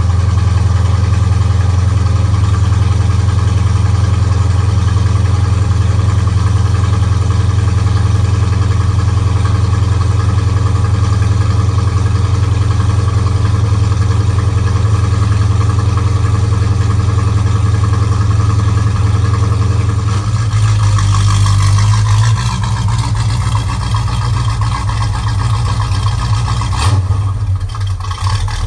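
1965 Pontiac GTO's V8 running at a steady idle just after a warm restart. About twenty seconds in, the note shifts lower.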